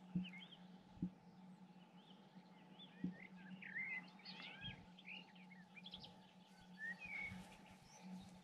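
Faint birdsong in woodland: many short chirps and twittering phrases, busiest in the middle. Under it runs a steady low hum, with a few soft low thumps.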